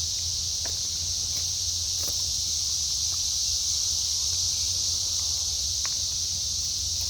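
A chorus of cicadas droning steadily and unbroken, with a few faint clicks over it.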